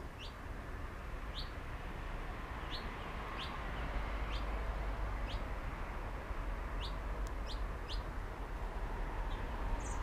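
A small songbird repeating short, sharp, downward-sliding chirps, about one a second at irregular spacing, over a steady low background rumble.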